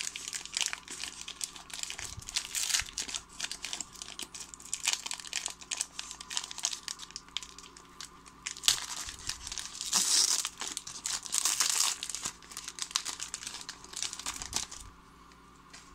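Wrapper of a Panini Prestige trading-card pack being torn open and peeled back by hand: continuous crinkling with sharper rips, loudest about ten to twelve seconds in, stopping about fifteen seconds in.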